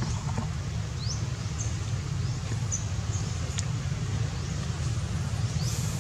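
Steady low rumble of outdoor background noise, with a few short, high, rising chirps.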